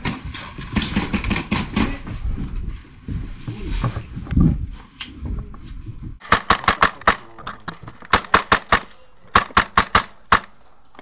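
Airsoft rifle firing in short rapid bursts of sharp snapping shots, four or five bursts starting about six seconds in. Before that there is low scuffing and rumble of movement.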